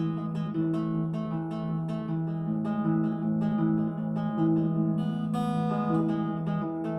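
Epiphone Lil Tex travel acoustic guitar played in a steady pattern of picked chord notes, with a brighter strummed chord about five seconds in.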